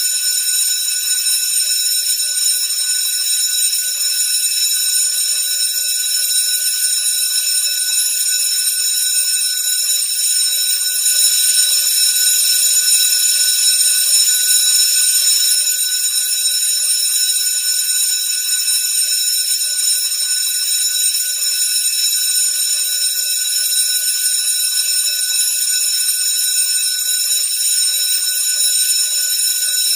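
School bell ringing continuously with a steady, high-pitched ring.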